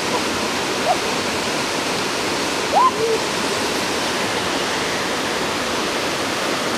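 Small forest waterfall and stream rushing steadily, with a brief short call rising in pitch about three seconds in.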